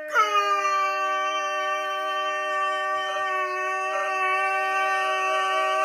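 Human voices holding one long, steady howl, dog-style. One voice slides down into its note at the start, then both hold level with no break.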